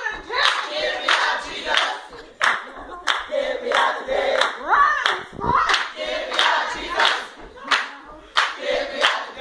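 A group of voices singing together with hand clapping in time, about two claps a second.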